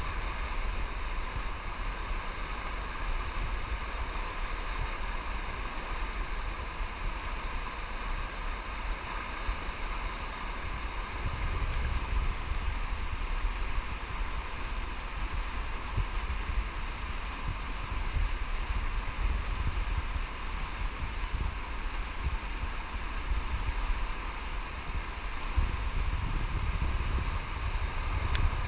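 River whitewater rushing steadily through breaking standing waves. Wind buffets the microphone in gusts, strongest about halfway through and again near the end.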